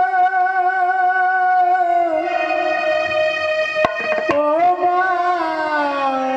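Live Bengali devotional folk music: one long melody note with slight vibrato, held for about two seconds, then stepping down and sliding lower in pitch. Two sharp percussion strokes fall about four seconds in.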